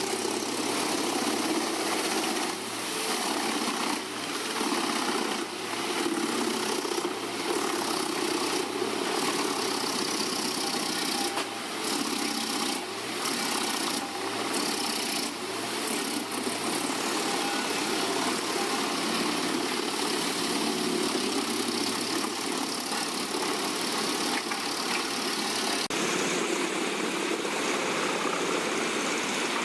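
Komptech Chipper 8010C wood chipper, driven by a Caterpillar diesel engine, running steadily under load while it chips tree trunks. The loudness rises and falls, with a string of sharp knocks in the first half, and the sound changes abruptly near the end.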